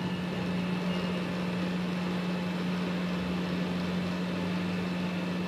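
Steady low machine hum over an even hiss, unchanging throughout.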